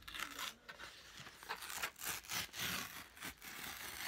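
Parcel packaging being torn and pulled open by hand: a run of irregular ripping and scraping strokes, busiest in the second half.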